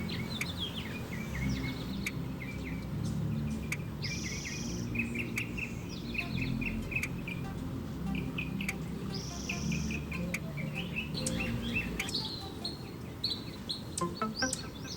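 Small birds chirping and twittering: many short, quick repeated notes and brief trills, with a low steady hum underneath for most of the time.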